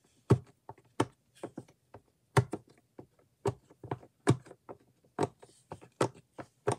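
Bubbles of a silicone snail-shaped pop-it fidget toy being pressed in one after another: a string of short, sharp pops at about three a second, unevenly spaced.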